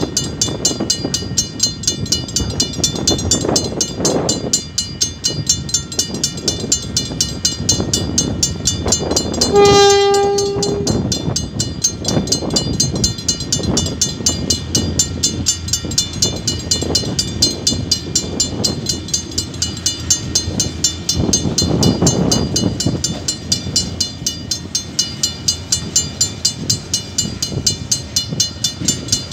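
Level-crossing bells ringing steadily at about two strokes a second. About ten seconds in, a KiwiRail DSG diesel locomotive sounds one long horn blast. A low train rumble builds under the bells, and near the end container wagons roll across the crossing.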